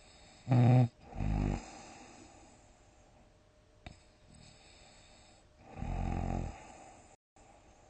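A sleeper snoring loudly. A sharp, buzzing snore about half a second in runs straight into a lower rumbling one. After a few seconds of quiet breathing comes a second long, rumbling snore near the end.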